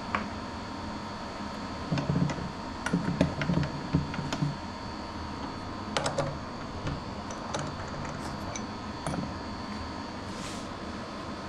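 Light clicks and taps of small tools being handled, a cluster of them about two seconds in and a few more later, typical of swapping drill bits in a drill chuck, over a steady machine hum.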